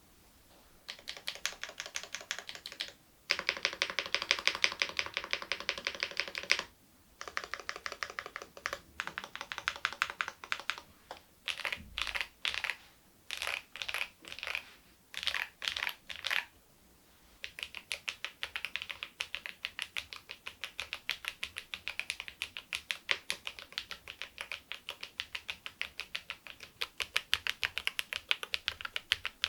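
Typing on a KEYSME AIM04 HE aluminium keyboard with magnetic Hall-effect switches, fitted with replacement keycaps: fast runs of keystrokes broken by short pauses, with a stretch of short separate bursts of a few keys each in the middle.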